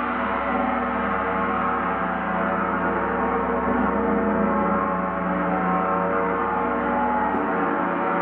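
Gong played continuously: a steady, dense wash of many overlapping ringing tones with no separate strikes standing out.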